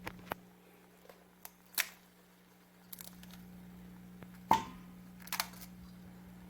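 Scattered sharp clicks and knocks, about seven in all, over a steady low hum. The loudest comes about four and a half seconds in and has a brief metallic ring.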